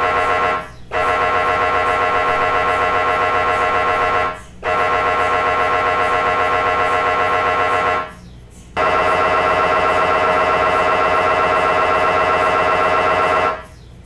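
MRI scanner gradient coils sounding a loud, rapidly pulsing buzz at a steady pitch. It pauses briefly three times and stops shortly before the end.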